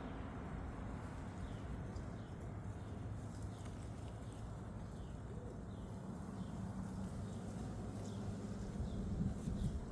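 A bird calling over and over with short, falling chirps, against a steady low rumble of wind on the microphone.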